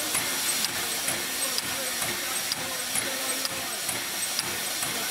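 Steady hiss of escaping steam around the front end of a standing BR Standard Class 7 'Britannia' steam locomotive, with faint voices behind.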